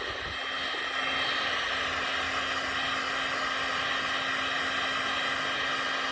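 Electric heat gun blowing steadily on its highest setting, a constant fan-and-air rush with a faint steady hum, as it heats a solder seal connector until the heat shrink shrinks.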